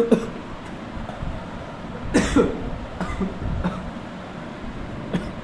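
A man coughing and clearing his throat in several short bursts, the loudest about two seconds in.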